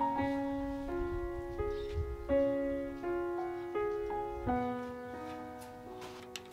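Background piano music: a slow melody of held notes changing about every half second, with a light click or two near the end.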